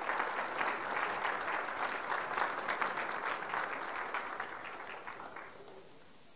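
Audience applauding, many hands clapping together, tapering off and ending about five and a half seconds in.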